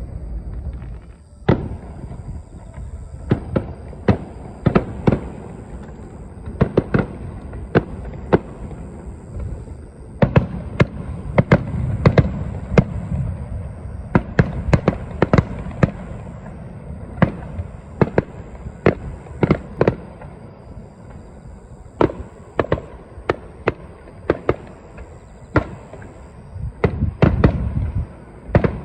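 Aerial fireworks shells bursting: dozens of sharp bangs at irregular intervals, several in quick clusters, over a continuous low rumble of booms echoing off the surroundings.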